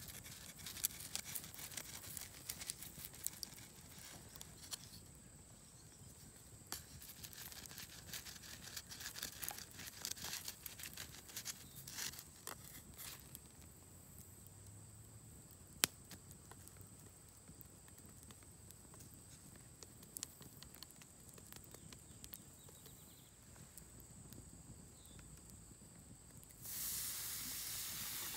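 Wood campfire crackling, with scattered sharp pops and one louder pop midway. Near the end a louder, steady sizzling hiss starts suddenly beside the wheat cake cooking on the hot stone slab.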